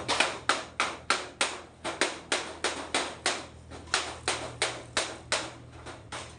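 Steady series of sharp strikes, about three a second, like a hammer tapping on a workpiece, over a faint low hum.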